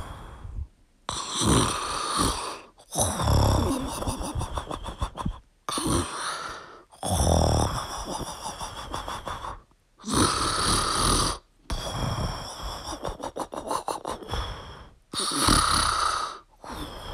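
A sleeping dog snoring: a rattling snore with each breath, repeating every second or two.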